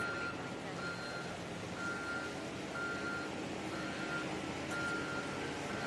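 Vehicle reversing alarm beeping about once a second, each beep short and steady in pitch, over a low steady rumble.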